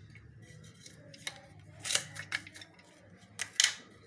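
Raw onion being cut: about five short, crisp crunching snips, the loudest about two seconds in and again near three and a half seconds.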